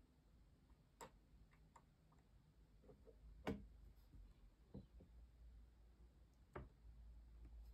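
Near silence with a few faint, irregularly spaced knocks and taps as the white Logitech MK470 slim keyboard is handled on a wooden tabletop. The sharpest knock comes about three and a half seconds in.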